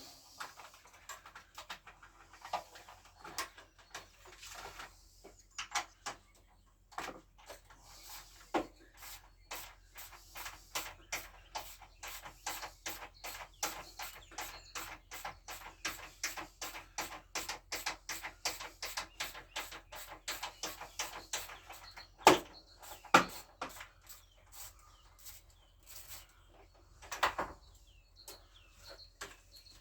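Ratchet wrench with a 14 mm socket clicking in a steady run of about five clicks a second while working a bolt on a four-stroke scooter engine. The clicking is sparse at first and stops after about 22 seconds, followed by a few louder single metallic knocks.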